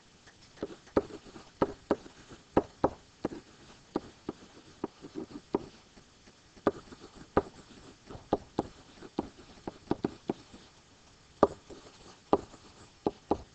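A pen tapping and scratching on a writing surface as letters are handwritten: a run of irregular short taps, a few a second.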